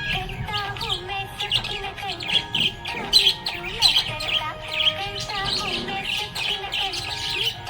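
Budgerigars chirping and warbling in a quick, continuous run of short chirps, loudest about three to four seconds in.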